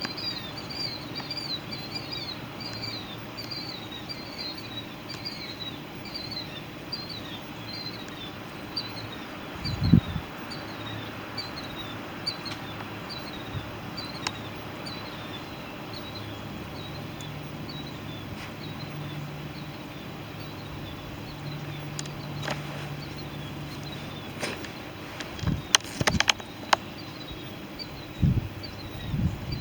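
A small bird chirping in a quick repeated series of short, high calls that fade out after about a dozen seconds. There is a low thump about ten seconds in and a few knocks near the end.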